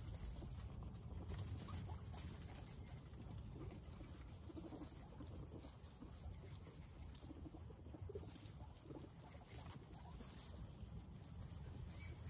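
A group of guinea pigs chewing fresh grass and carrot slices: a faint, steady patter of many small crunching and nibbling sounds.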